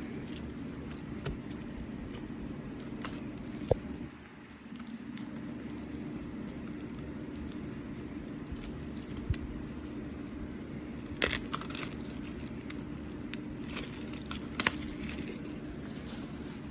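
Plastic shrink wrap being peeled and crinkled off a Blu-ray case, with scattered crackles and a few sharper snaps, over a steady background hum.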